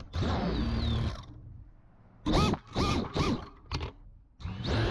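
FPV quadcopter's brushless motors heard from its onboard camera while the quad is down on a concrete floor: after a first whir, the motors give four short blips, each rising in pitch, then near the end spool up into a steady whine as it lifts off.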